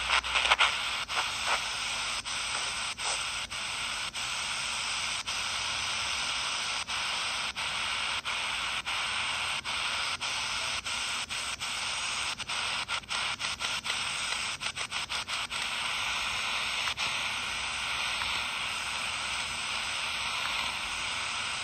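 Miniature shortwave radio receiver's speaker giving a steady static hiss with many sharp crackling clicks, no station coming through: the poor reception on the shortwave bands.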